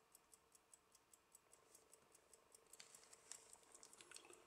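Faint, even ticking of an antique Waltham key-wind pocket watch's seven-jewel lever movement, about five ticks a second: a healthy tick from a movement in working order. From about three seconds in, fingers rub and scrape against the silver case, louder than the ticking.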